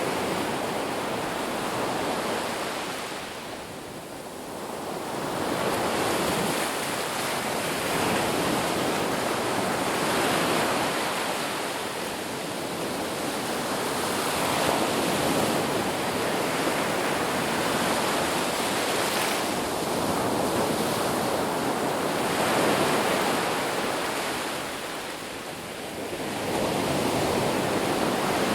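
Ocean waves surging and washing in, a dense rush that swells and fades every several seconds, with deeper lulls about four seconds in and again a few seconds before the end.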